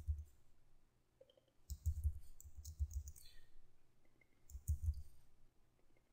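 Typing on a computer keyboard: quick runs of key clicks with pauses between them.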